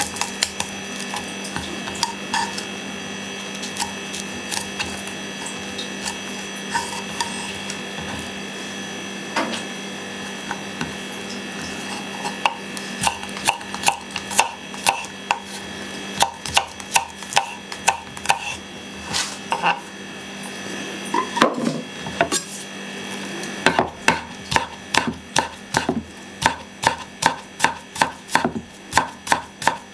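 Garlic cloves being peeled and handled on a wooden cutting board, light clicks and rubbing, then a kitchen knife cutting garlic on the board in regular strokes about two a second from about twelve seconds in. After a short pause the knife chops faster, mincing the garlic.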